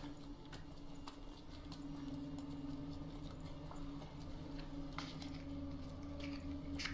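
A low, steady drone runs under scattered footsteps and scuffs of people walking on a rocky cave floor. A sharper click comes near the end.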